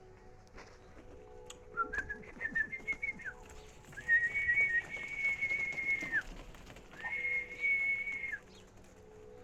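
Ostrich chicks calling: a few short whistled notes stepping up in pitch, then two long, steady whistles, over a faint steady hum.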